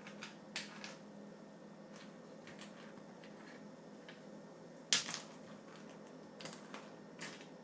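Irregular sharp clicks and knocks of a Labrador puppy playing with a piece of ice, about ten in all, the loudest a little before five seconds in.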